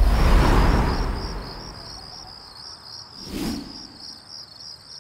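Insects chirping in a steady, evenly repeating high pulse, with a loud swell of rushing noise with a deep low end that rises and fades over the first second and a half, and a second, shorter swell about three and a half seconds in.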